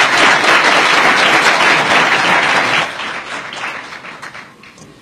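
Audience applauding, dense at first and then dying away over the last two seconds.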